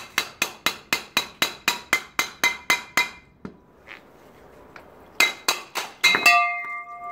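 A hammer striking the steel barrel of a diamond core drill bit, a sharp metallic clang about four times a second, to knock a stuck concrete core out of the bit. After a pause of about two seconds comes a second quicker run of blows, and the last ones leave the barrel ringing.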